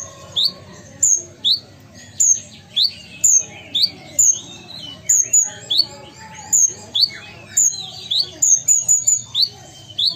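A caged kolibri ninja (konin), the purple-throated sunbird, calls busily in a string of sharp, high chirps, about two a second. About eight seconds in the notes come in a quicker run.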